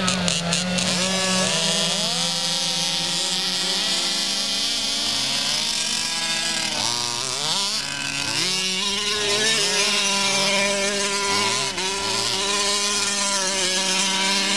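Several 1/5-scale RC cars' small two-stroke petrol engines running together, first idling, then revving up about a second and a half in as the cars pull away. Their overlapping engine notes keep rising and falling with the throttle.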